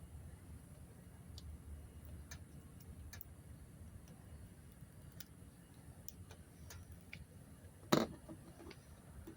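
Faint, irregular small clicks and ticks over a low background rumble, with one louder sharp click about eight seconds in.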